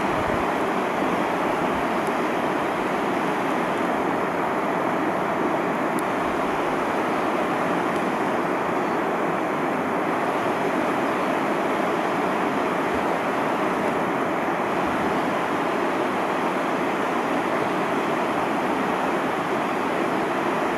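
Steady rushing of a river rapid's whitewater, an even roar of broken water that holds constant throughout.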